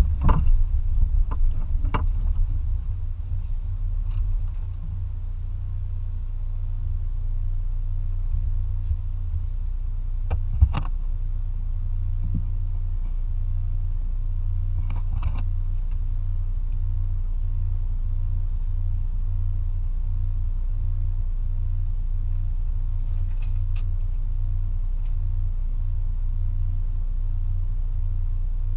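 The engine of a 2004 Toyota Tacoma running, a steady low rumble with an even pulse. A few sharp knocks or clicks come near the start, about ten seconds in and again about fifteen seconds in.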